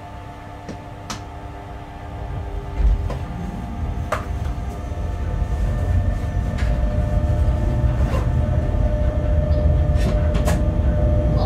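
Bombardier Traxx BR 186 electric locomotive heard from its cab as it runs light along the track, a low rumble growing steadily louder as it gathers speed under steady whining tones. Scattered sharp clicks and a thump about three seconds in.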